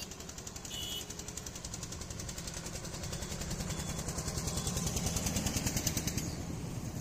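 Passing road traffic: a vehicle engine with a rapid, even knocking chug that grows louder as it comes by, peaking about five to six seconds in, then eases off.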